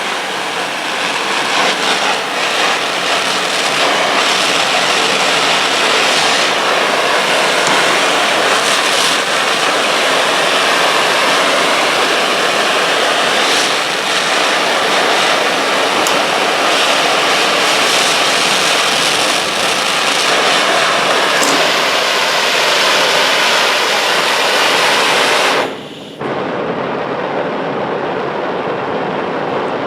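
Handheld gas torch burning with a steady hiss while heating a pair of linesman pliers. It cuts out briefly about four seconds before the end, then comes back.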